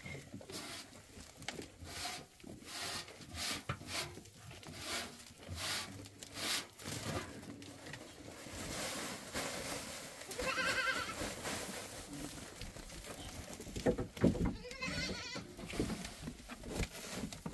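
A farm animal bleats once with a quaver about ten seconds in, among repeated short rustling and knocking sounds.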